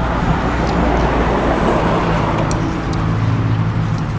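Road traffic: a motor vehicle passing close by, its engine hum low and steady under road noise that swells about halfway through. A few light clicks sound over it.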